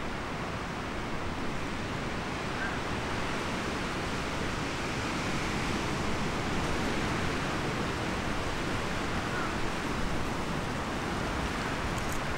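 Steady rushing of wind through the forest, with a few faint bird chirps.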